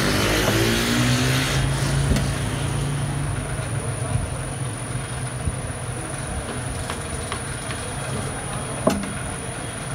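Steady low hum of a motor or street traffic, louder in the first couple of seconds, with a few sharp taps of a knife blade cutting through dough onto a plastic board, the loudest near the end.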